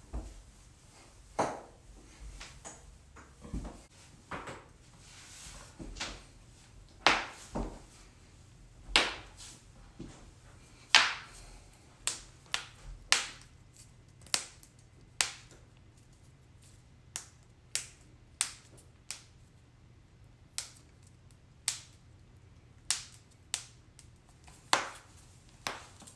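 Joints cracking: about two dozen sharp pops at irregular intervals, some much louder than others.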